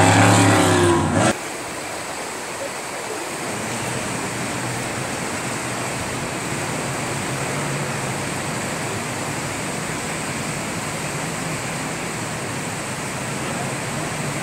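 A race jet boat's engine running loud at speed, cutting off suddenly about a second in. After that, the steady rush of river rapids, with the faint engine of a distant jet boat underneath.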